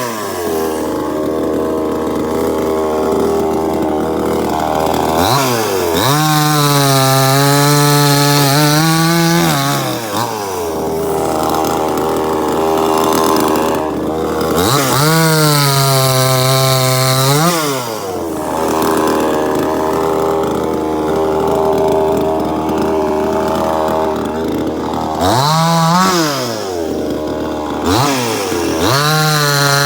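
Two-stroke 52cc gas chainsaw, a cheap Chinese '9800' model, idling and then revved to full throttle and held for a few seconds twice, as in cuts through maple, dropping back to idle in between. Near the end it gives two short blips of the throttle.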